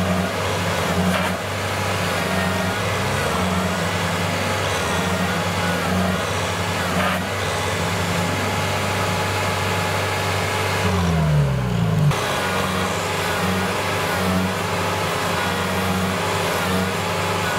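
Diesel engine of a Kubota DC70 tracked combine harvester running hard under load as it tows a mud-stuck tractor on a chain. About eleven seconds in, the engine speed drops sharply for a moment, then picks back up.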